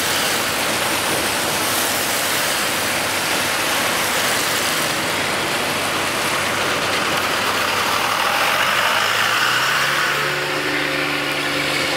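Steady road and engine noise heard inside a moving vehicle's cabin on a wet road. The engine's tone comes up and rises in pitch about ten seconds in.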